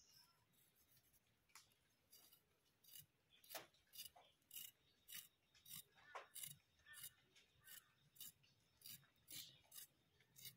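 Small potato scraped against a boti's fixed blade while being peeled, in short, faint scraping strokes about two a second.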